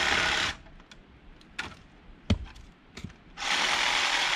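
Reciprocating saw cutting into a wooden deck post: a short burst of sawing at the start, a single sharp knock about two seconds in, then a longer burst of sawing of about a second and a half near the end.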